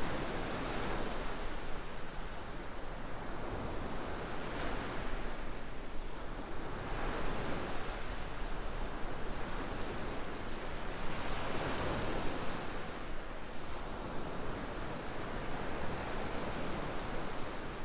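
Ocean surf: waves washing in and drawing back, a steady rushing hiss that swells and fades every few seconds.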